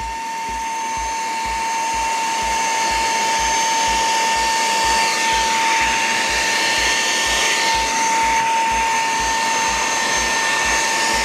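Cleanfly H1 cordless cyclonic handheld vacuum cleaner running steadily at its lowest power setting, a constant high motor whine over airflow hiss, as it sucks up scattered sugar. The hiss swells for a few seconds around the middle.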